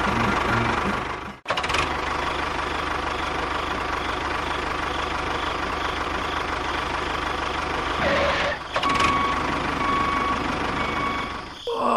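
Engine running steadily, with a sudden short break about a second and a half in.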